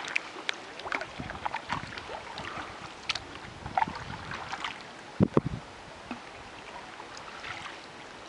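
Canoe paddles dipping and pulling through calm lake water, with small irregular splashes and drips. There is a single dull knock about five seconds in.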